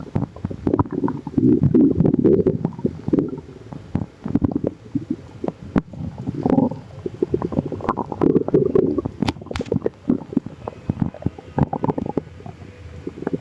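Human stomach growling: bubbly gurgles and pops coming in irregular bursts, with a couple of quieter spells between them.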